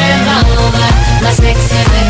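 Electronic dance-pop track: synth lines over a heavy, steady bass-drum beat that comes in about half a second in at about two beats a second.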